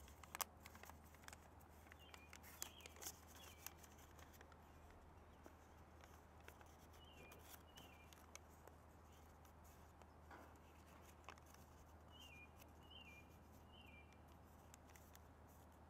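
Near silence: faint crinkles and taps of origami paper being folded by hand over a steady low hum, with a few faint high chirps in groups of two or three.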